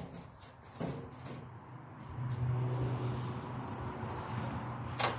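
Two sharp knocks, one about a second in and one near the end, with a steady low motor hum setting in about two seconds in.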